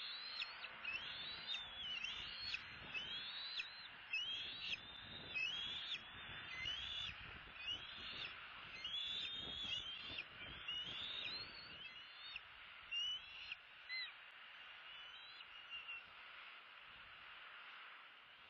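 Bald eagles at the nest giving a series of high, thin whistled calls, each quickly rising and then dropping, a little more than one a second. The calls thin out and fade after about 14 seconds.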